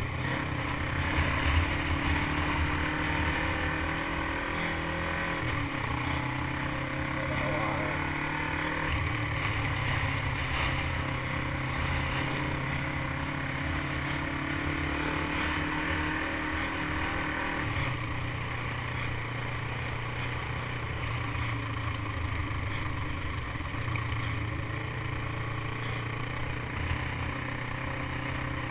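Motorcycle engine running at road speed, heard from the bike itself, with wind rushing over the microphone. The engine note shifts pitch a few times as the throttle or gear changes.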